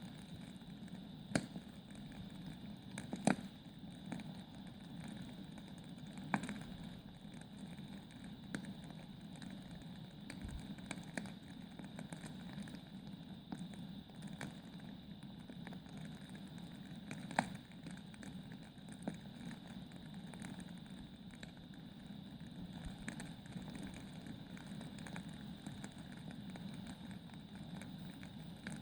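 Burning logs in a fireplace crackling: irregular light ticks with a few sharp louder pops, over a steady low rush of the fire.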